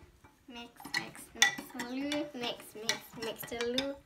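Metal spoon stirring liquid jelly mix in a glass measuring jug, clinking and scraping against the glass, with wavering pitched squeaks in the second half.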